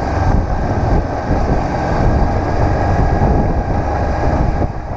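Honda CB500X's parallel-twin engine running under way, with wind buffeting the microphone; the sound fades out near the end.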